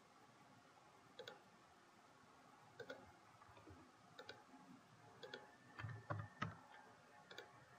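Faint computer mouse clicks, about ten scattered short clicks, coming closer together in the second half.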